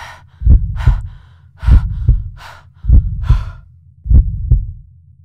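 Heartbeat sound effect, deep paired thumps about every 1.2 seconds, with a runner's heavy panting breaths over it. It fades a little, then cuts off at the end.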